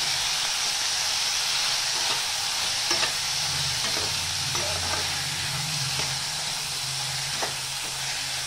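Chopped onion and tomato frying in hot oil in a kadhai, a steady sizzle, while a spatula stirs them and clicks and scrapes against the pan a few times.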